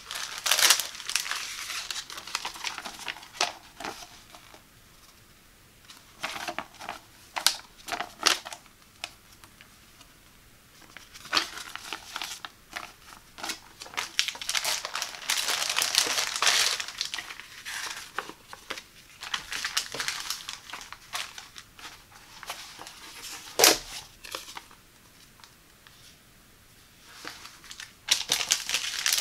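Plastic packaging, a folded paper leaflet and a frosted PEVA shower curtain liner crinkling and rustling as they are handled. The crinkling comes in bursts with quiet pauses between, loudest near the start, in the middle and near the end.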